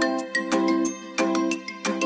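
Light background music of quick, bright notes, about five a second, with a chime-like melody.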